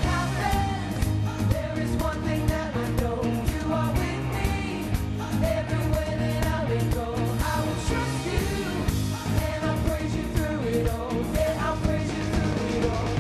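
Live worship band playing a pop-rock song with sung vocals over a steady drum beat.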